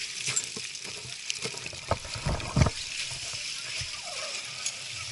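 Broken lake ice and icy water: a steady crackling hiss of loose ice and slush, with a few sharp knocks and cracks of ice pieces just before and after halfway, the last the loudest.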